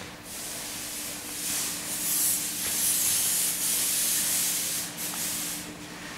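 A rough hissing noise that swells about a second in and stays up until near the end, over a faint steady low hum.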